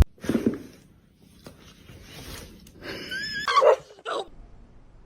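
A brief high animal call with a wavering, gliding pitch about three seconds in, after a short faint sound near the start.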